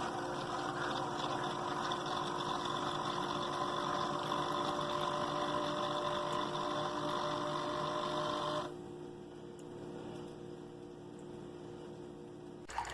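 Single-serve pod coffee maker's pump running steadily with a hum while it brews, stopping abruptly about nine seconds in and leaving a fainter hum.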